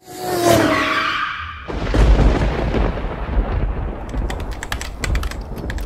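Logo-intro sound effects: a noisy swoosh with gently falling tones, then a sudden deep boom a little under two seconds in that rumbles on, and a run of sharp clicks near the end.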